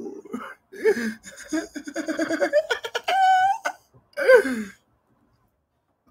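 A man laughing hard: a run of rapid ha-ha pulses, a high held squeal, and a falling cry that ends it about five seconds in.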